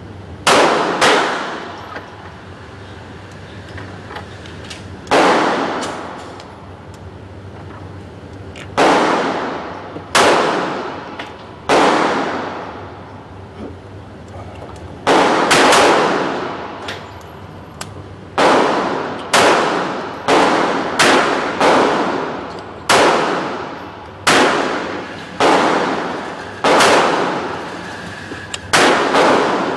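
Handgun shots at a shooting range, about twenty at an irregular pace, some spaced several seconds apart and some well under a second apart. Each is a sharp crack with an echoing tail that fades over about a second.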